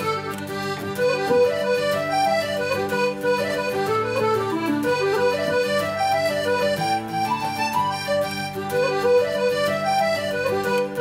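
Background instrumental music: a melody of quick running notes over held chords, with a light steady beat.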